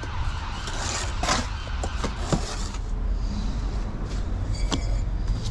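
A steel brick trowel scraping and tapping on bricks and mortar, a handful of short sharp knocks, over a steady low rumble.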